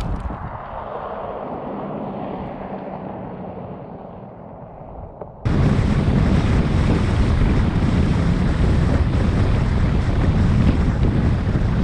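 Subaru XV pulling away over a gravel track, its tyre and stone-spray noise fading with a faint steady engine hum. About five seconds in this cuts abruptly to loud wind buffeting and rumble on the car-mounted microphone as the car drives across a rough grass field.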